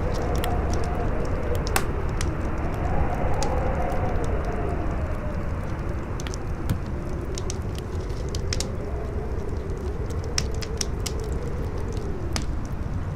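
Wind howling, its moaning pitch rising and falling over a steady rush, with a campfire crackling: frequent sharp pops and snaps.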